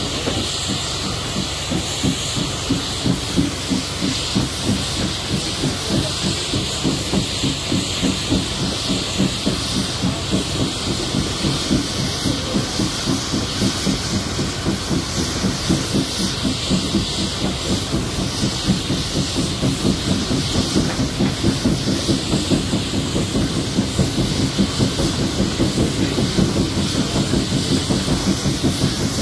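1947 Baldwin 2-8-2 Mikado steam locomotive under way: a quick, even chuffing from the exhaust over a steady hiss of steam.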